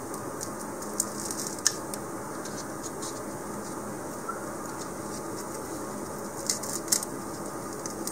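A few short scratches and clicks as a model rocket's motor mount tube is worked out of a styrofoam ball: two about a second in, then a cluster about six and a half seconds in, over a steady background hum.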